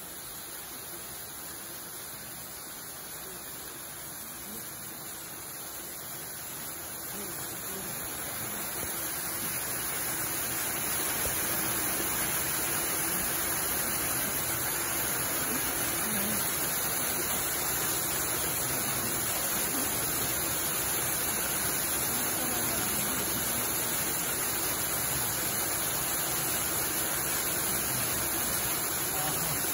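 Steady rushing noise like running water, swelling over a few seconds about a third of the way in and then holding steady.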